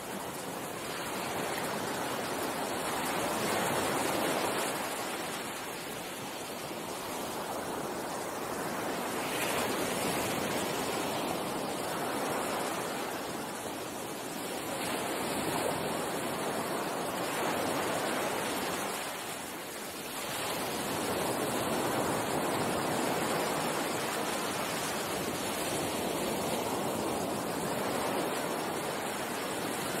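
Ocean surf: a continuous rush of breaking waves that swells and eases every few seconds.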